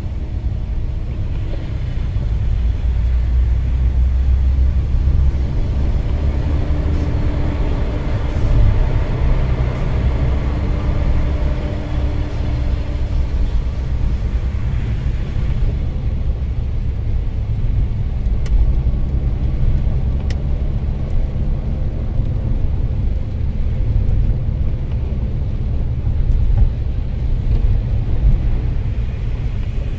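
Road noise heard inside a moving car on a wet road: a steady low rumble with the hiss of tyres on water.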